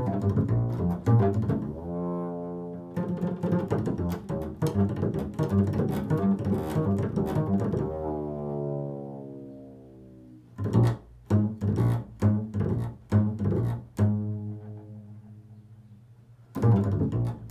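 Improvised solo music on a low-pitched string instrument, mixing bowed and plucked notes. It plays a run of quick notes, then a sliding note, then separate plucked notes, and a long note fades away before playing resumes near the end.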